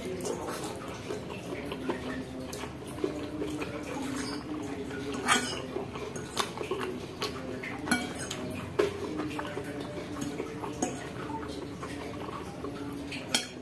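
Metal fork clinking and scraping against a ceramic bowl while eating instant noodles, with several sharp clinks spaced about a second apart.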